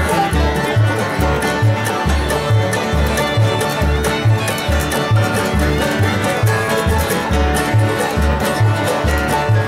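Acoustic bluegrass band playing live: banjo and fiddle over acoustic guitar and mandolin, with an upright bass playing steady alternating low notes about two a second.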